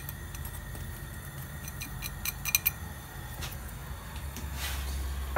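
Light clinks and taps of small kitchen bowls being handled: one about half a second in, a quick cluster around two and a half seconds in, and another a second later, over a low steady hum.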